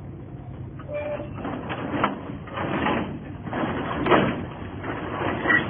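A flock of racing pigeons bursting out of a transport truck's crates: wings flapping in rushing surges, with a few sharp knocks about two, four and five and a half seconds in.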